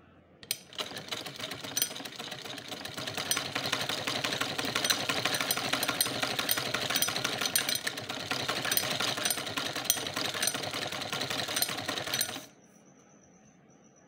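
Sewing machine stitching a fabric hem: a fast, steady run of needle strokes that starts about half a second in and stops suddenly near the end.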